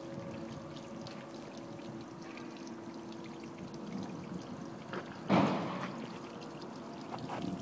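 Water pouring from a hose into a nearly full 5-gallon plastic water jug, pumped 10 feet up by a small homebrew beer pump. A short, much louder burst comes about five seconds in.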